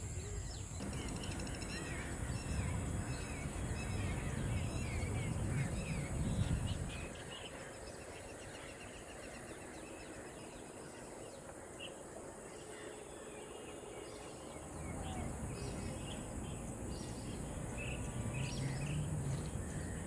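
Many small birds chirping and calling in short scattered notes, over a low rumble that fades out about seven seconds in and comes back around fifteen seconds.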